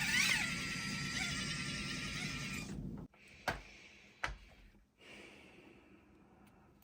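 Axial SCX24 1/24-scale crawler's small electric motor and drivetrain whining, with a few quick rises and falls in pitch as the throttle is worked. The whine cuts off suddenly about three seconds in, followed by two sharp clicks about a second apart.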